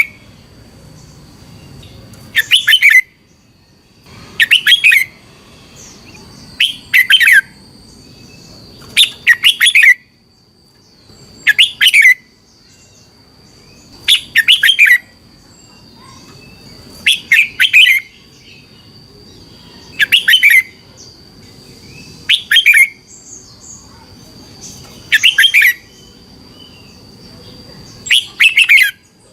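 Red-whiskered bulbul singing short, loud whistled phrases, one about every two and a half seconds, evenly repeated throughout.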